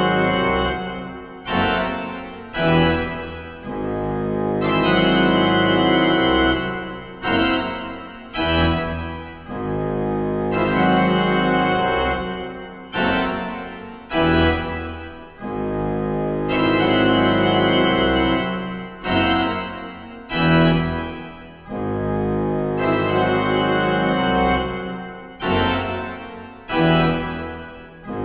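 Pipe organ playing loud, dense chords. Long held chords alternate with pairs of short stabs, each cut off sharply and then dying away in the hall's echo.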